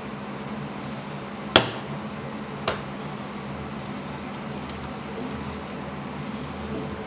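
Two sharp plastic knocks from a hand-cranked plastic meat grinder as raw meat is pressed into its hopper: a loud one about a second and a half in and a softer one a second later, over a steady low hum and hiss.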